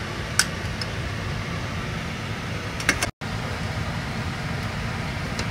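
A steady low hum and rush of a fan or air-conditioning unit, with a few light clicks and a brief dropout to silence about three seconds in.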